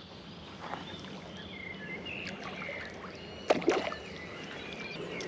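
Water splashing and sloshing at the water's edge, with a louder splash of several quick strokes about three and a half seconds in and a few short high chirps over the top.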